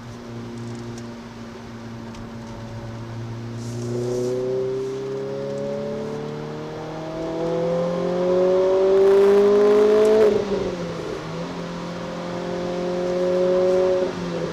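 Renault Clio RS 200's 2.0-litre four-cylinder engine heard from inside the cabin, pulling up through the revs for several seconds. About ten seconds in the revs drop abruptly, as at a gear change, then climb slowly again and drop once more near the end.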